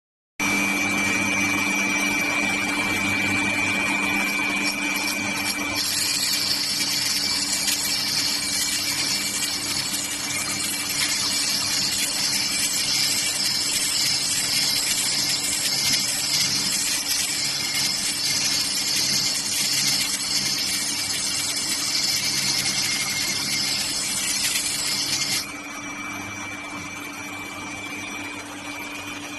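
Semi-automatic grinding machine for diamond saw blade segments running with a steady motor hum. About six seconds in, a loud high grinding hiss joins it and holds steady, then cuts off suddenly a few seconds before the end, leaving the hum alone.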